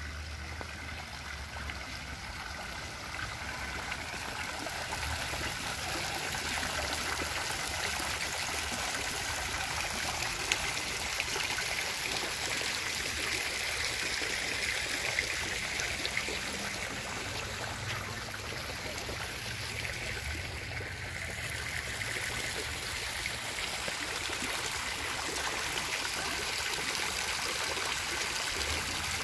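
Garden fountain's water jets splashing and trickling into its basin: a steady rush of water that grows a little louder over the first few seconds.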